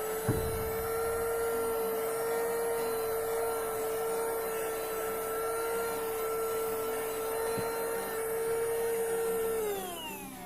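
Handheld 12-volt Bergmann car vacuum cleaner running steadily with a whining motor, a single knock about a third of a second in. Near the end it is switched off and the whine falls away as the motor winds down.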